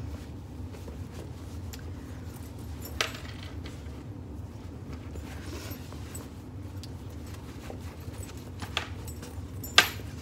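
A fabric bag being handled and pushed into shape, the cloth rustling, with a few sharp clicks from its metal zipper pull and hardware. The loudest click comes near the end.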